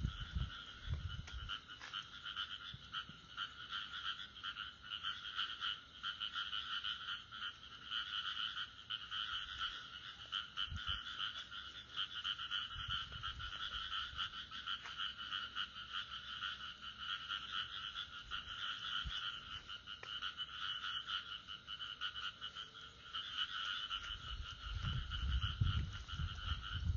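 A chorus of frogs calling steadily, a dense pulsing trill at two pitches. Near the end, low thumps and rustling come up close to the microphone.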